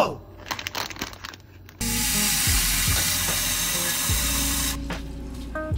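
Tap water running into a cooking pot at the kitchen sink, an even rushing hiss that starts suddenly about two seconds in and stops about three seconds later.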